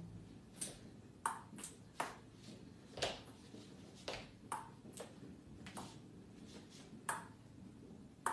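Ping-pong ball batted back and forth between a rubber-faced table-tennis paddle and a cat's paws. A string of sharp, light clicks at uneven intervals, about a dozen, roughly one a second.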